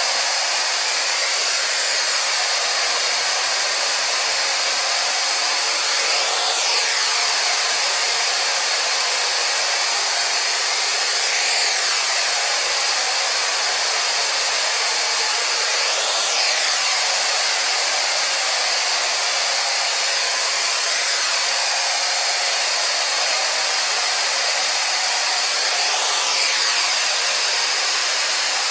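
Xiaomi robot vacuum cleaner running: a steady whir from its suction fan and brushes, with a faint sweep in pitch about every five seconds.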